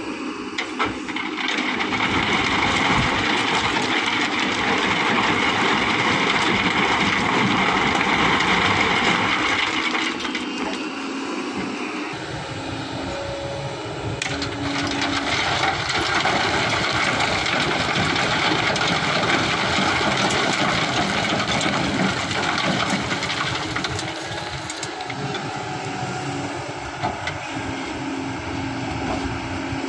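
Kobelco hydraulic excavator running while sand and gravel pour from its bucket onto a steel grid screen and into a dump truck bed, a rushing, rattling spill over the steady engine. The spill swells twice, for several seconds each time.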